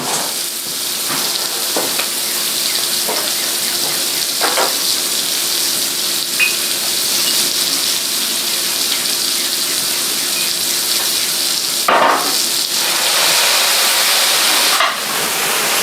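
Garlic and mushrooms in butter sizzling steadily in a hot sauté pan during a cognac flambé, with a few light knocks of a utensil against the pan and a brief louder burst about twelve seconds in.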